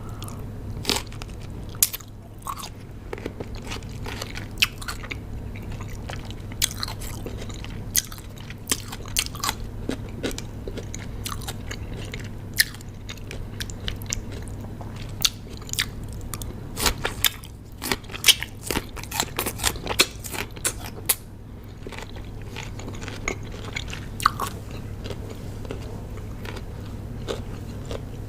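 Raw cucumber being bitten and chewed close to the microphone: sharp, wet crunches at an irregular pace, coming thickest about two-thirds of the way through.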